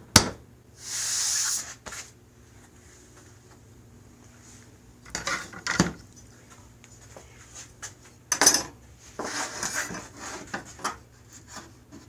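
Tool handling on a wooden table saw sled while it is checked for square: a sharp click at the start, a scraping rub of about a second shortly after, then scattered knocks and clatter in the second half.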